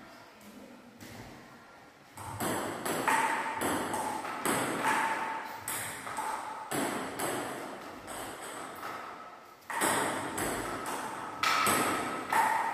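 Table tennis rally: the ball clicking off the paddles and the table in a steady back-and-forth, about two hits a second, with a short echo after each. The first couple of seconds are quieter before the rally picks up.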